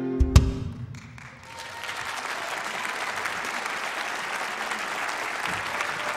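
A band's final held chord is cut off by a sharp low hit just after the start, then audience applause builds from about a second and a half in and carries on steadily.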